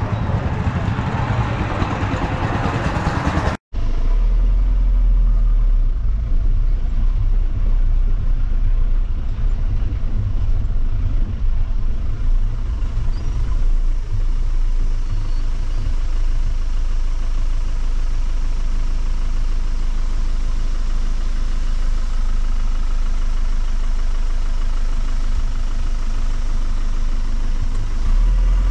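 Jeep running on the road, a steady low engine and road rumble. It breaks off for an instant about three and a half seconds in, then goes on with a deeper rumble.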